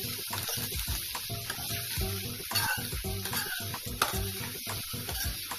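Metal spatula scraping and knocking against an aluminium kadai in irregular strokes while stirring chopped ridge gourd sautéing in oil, with a steady sizzle under it.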